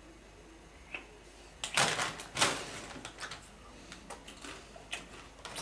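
Plastic snack packet crinkling and crackling as it is handled, starting about a second and a half in and loudest just after, then scattered crackles.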